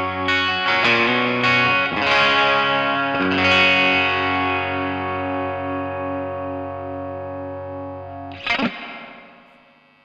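Gillmore GFT 15 Telecaster-style electric guitar played through a Boss Katana amp: a few quick struck chords, then a final chord left ringing with a slight wavering as it slowly fades. Near the end a short scrape sounds on the strings, the ring is cut off, and only faint amp hum is left.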